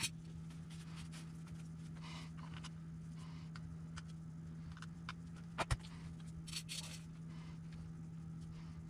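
Faint clicks and scrapes of small parts being handled while an RC truck is reassembled, with two sharper clicks a little past halfway, over a steady low hum.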